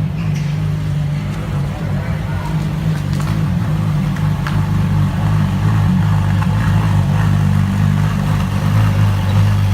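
A car engine running steadily at low revs, a deep even hum that grows slightly louder after about five seconds.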